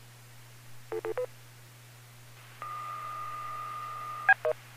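DTMF touch-tone control tones for a ham radio remote base: three quick tone beeps about a second in, then a steady tone for about a second and a half that ends in two short beeps. The tones command the remote base radio to change frequency.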